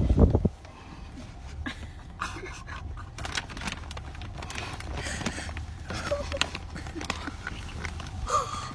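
A hand rubs against the phone's microphone for the first half-second. Then a child cries with emotion: heavy, gasping breaths and a few short whimpering sobs, the last near the end, over a low steady hum.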